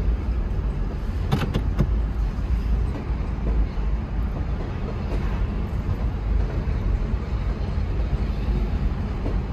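Freight train of covered hopper cars rolling past at a grade crossing: a steady low rumble of wheels on rail, with a few sharp clacks about a second and a half in.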